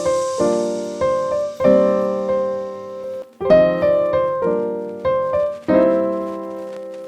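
Background music: piano chords struck and left to ring out, a new chord about every second.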